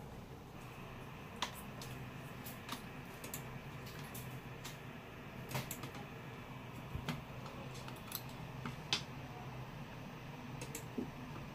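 Scattered light clicks and taps at irregular intervals, over a steady low hum.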